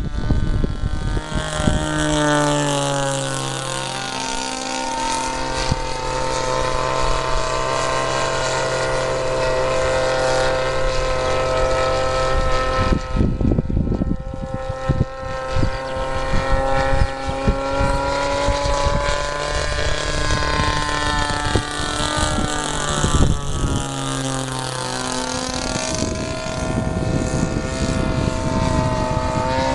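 The DLE 40 two-stroke petrol engine of a large RC scale Zlín Z-50 LX aerobatic model running in flight, a buzzing propeller note. Its pitch falls about two seconds in, holds steady for most of the time, and climbs again near the end.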